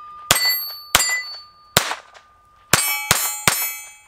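Six shots from a Walther P22 .22 LR pistol, uneven in spacing and quicker toward the end, each followed by the clang and fading ring of a steel target being hit.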